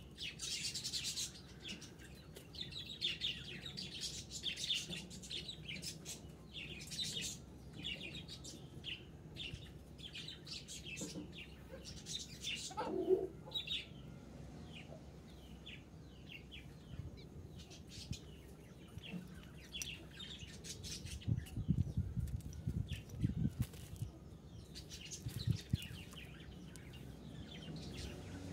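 Many short, high bird chirps throughout, with a brief rising tone near the middle and a cluster of low thuds about three-quarters of the way through.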